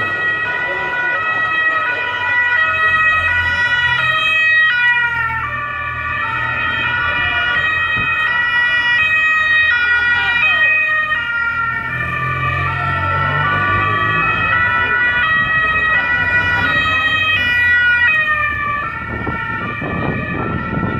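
Several two-tone emergency-vehicle sirens sounding at once, their notes stepping up and down out of step with each other, over the low rumble of vehicle engines. A vehicle's noise swells near the end.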